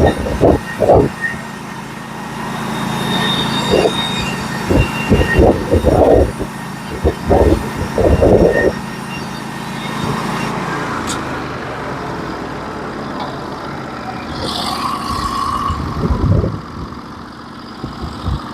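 Engine of a Norwood HD36v2 portable band sawmill running steadily while the band cuts through a log, with many sharp, irregular knocks through the first nine seconds or so. About ten seconds in the engine note changes and the sound drops to a lower, steadier running.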